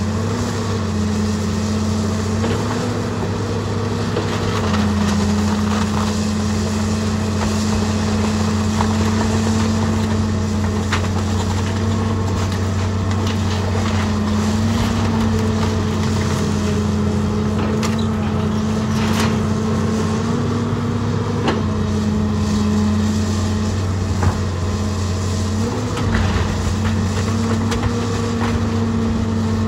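John Deere tracked excavator's diesel engine running steadily, its note stepping up and down as it works, with occasional sharp cracks and crunches of wood and sheet-metal debris as the barn is broken up.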